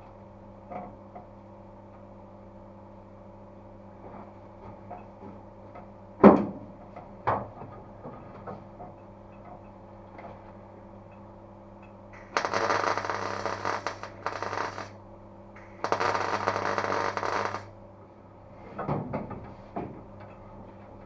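MIG welder laying two short bursts of crackling welds on steel floor panels, about two seconds each, after a few sharp metal knocks. A steady mains hum runs underneath.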